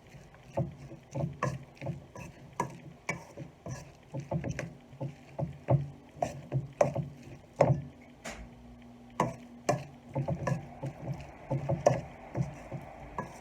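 A spoon stirring chicken salad with mayonnaise in a bowl: irregular clicks and knocks of the spoon against the bowl, a few a second, mixed with the soft wet sound of the thick mixture being turned.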